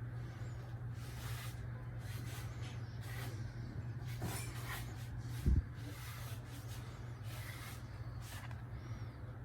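Low-profile ceiling fan running with a steady low hum and soft, uneven hissing of air. A single low thump comes a little past halfway.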